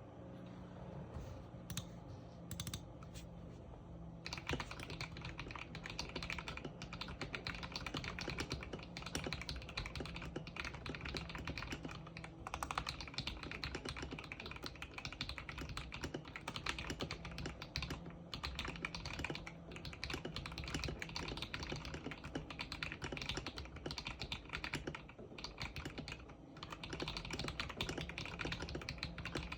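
Typing on a KBD67 Lite R3 mechanical keyboard with lubed KTT HaluHalo switches and PBT keycaps, damped by silicone between plate and PCB and foam in the case. A few separate keystrokes at first, then from about four seconds in, fast continuous typing.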